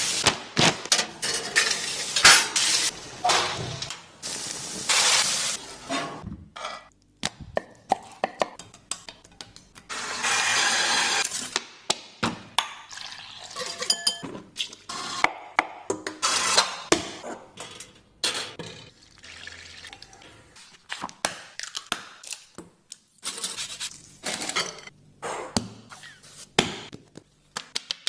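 Hand food preparation: a small kitchen knife knocking and scraping on a cutting board as coriander and fruit are chopped, with clinks of a ceramic bowl and dishes. It comes as irregular sharp knocks, broken by a few longer hissing stretches, the longest about ten seconds in.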